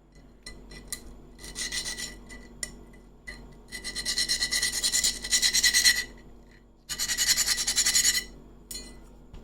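Homemade DC-motor rotary drill running with an abrasive accessory bit pressed against a workpiece, giving a rasping grind with a steady high motor whine. It comes in three bursts: a short one, then a longer one of about two seconds, then another of over a second.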